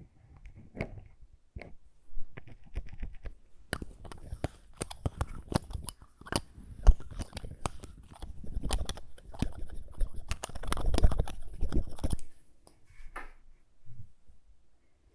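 Close-miked lip balm ASMR: irregular sticky clicks and crackles, busiest in the middle and stopping about three seconds before the end, with one more small sound a second later.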